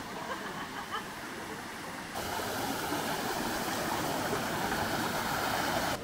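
Mountain stream water running over rocks. It is softer at first, then becomes louder and fuller after a sudden jump about two seconds in.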